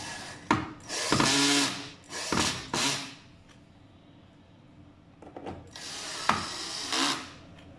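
Cordless drill-driver driving the screws of a scooter's deck cover plate in short bursts: three quick runs in the first three seconds, then a longer run from about five to seven seconds, with a sharp click in the first and last runs.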